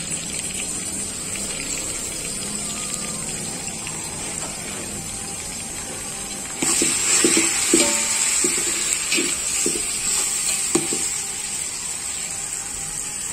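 Onions and green chillies frying in oil in a pan, a steady sizzle that jumps louder about six and a half seconds in as the tomatoes go in. A spoon then stirs, knocking and scraping against the pan several times.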